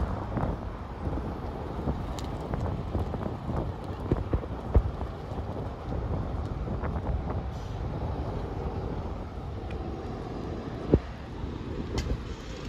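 Street traffic noise: a steady rumble of vehicles driving by. Two sharp knocks stand out, one about five seconds in and one near eleven seconds.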